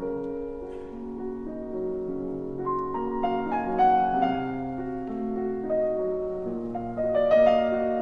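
Soft background piano music: a slow melody over held, overlapping chords.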